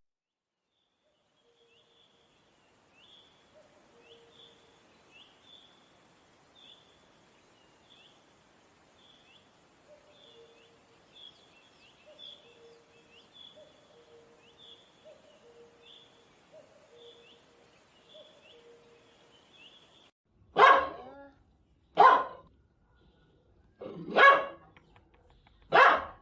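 A dog barking four times, loud single barks about a second and a half apart, starting about twenty seconds in. Before them, faint short chirps repeat steadily, roughly one or two a second.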